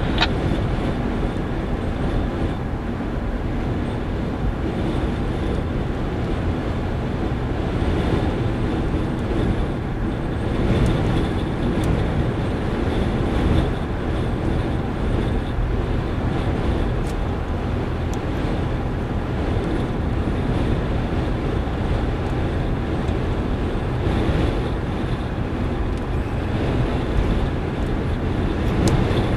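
Steady rumble of a car driving, tyre and wind noise with no distinct events.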